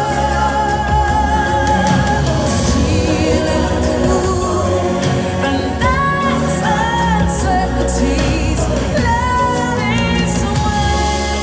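Background music with singing: held, gliding sung notes over a steady bass.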